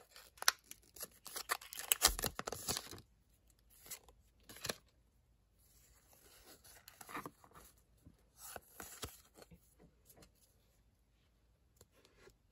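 Foil Pokémon booster-pack wrapper crinkling and tearing as it is pulled open, a dense crackle for about three seconds. Then quieter, scattered rustling and clicking of the trading cards being handled and shuffled.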